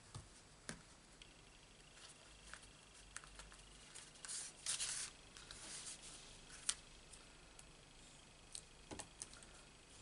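Faint handling of paper card stock on a craft mat: small taps and rubs as pieces are pressed down, a short rustle of the card being moved about four to five seconds in, and one sharp tap near seven seconds.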